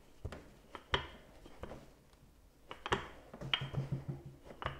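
Wooden rolling pin with handles rolling out folded puff pastry dough on a silicone mat: a few sharp knocks, and about three and a half seconds in, a quick low rattle as it rolls.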